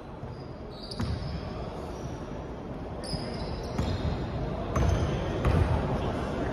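Basketball bouncing on a hardwood gym floor, several sharp thuds, heavier in the second half, with brief high sneaker squeaks about half a second in and again around three seconds.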